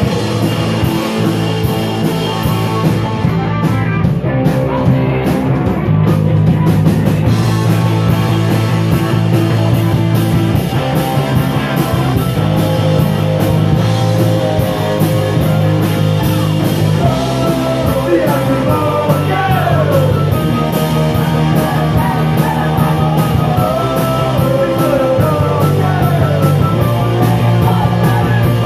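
Rock band playing loud and live: electric guitars over bass and drums, with pitch-sliding lead lines in the second half.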